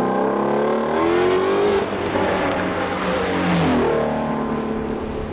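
Car engine revving: the pitch climbs over the first couple of seconds, drops back, then swings down and up again about four seconds in.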